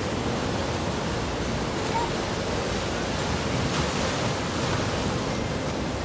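Ocean surf breaking and washing in over a rocky shore: a steady, continuous rush of waves and foam.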